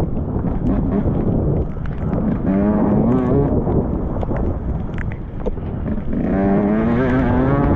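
Enduro motorcycle engine, heard from the rider's helmet, revving up hard twice as the bike accelerates, its pitch climbing about two and a half seconds in and again about six seconds in, over a steady rumble with scattered sharp knocks.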